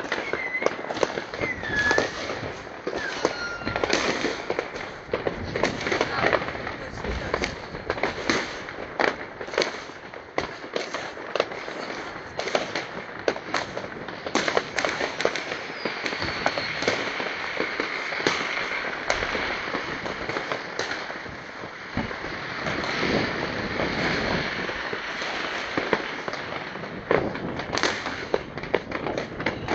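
A continuous barrage of fireworks: a dense run of bangs and crackling, with three short whistles in the first few seconds.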